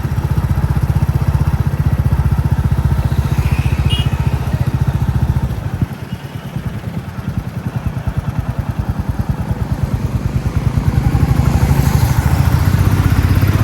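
Royal Enfield Classic 350's single-cylinder engine thumping steadily under way. About six seconds in the throttle eases off and the beat slows and softens, then it picks up again from about ten seconds.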